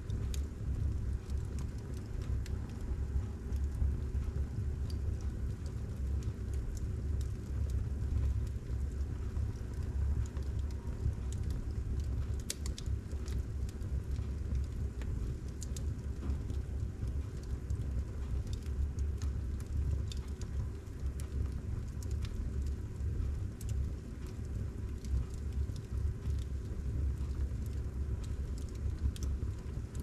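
Wood logs burning in a fireplace: a steady low rumble from the flames with scattered crackles and pops, a few sharper pops a little before halfway.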